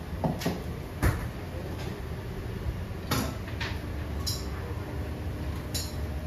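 Kitchen work: about eight light clinks and knocks of utensils and dishes, a few with a short ringing, over a steady low hum.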